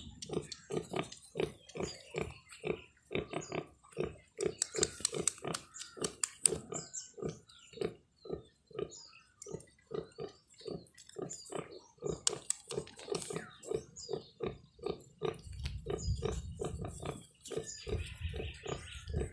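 Nursing sow grunting in a steady rhythm, about three short grunts a second, while her newborn piglets suckle: the sow's nursing grunt. High piglet squeaks come in now and then, most around five to seven seconds in.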